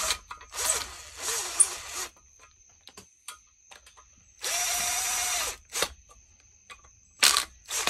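Power drill-driver running in short bursts on small fasteners: a longer uneven burst near the start and a steady whir of about a second a little past the middle. Light clicks and clinks of tools and small parts come between the bursts.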